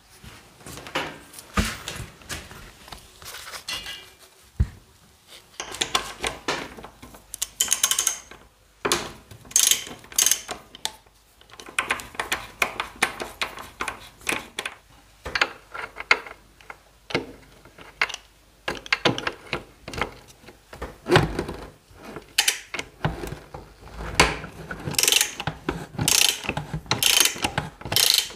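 Socket ratchet wrench clicking in short, irregular runs while turning bolts on a scooter's rear shock mount and engine case.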